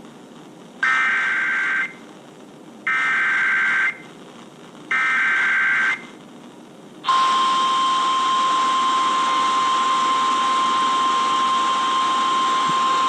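NOAA Weather Radio Emergency Alert System signal for a severe thunderstorm warning. It opens with three one-second bursts of SAME header data, about a second apart, then the steady 1050 Hz warning alarm tone holds for about six seconds, all over radio hiss.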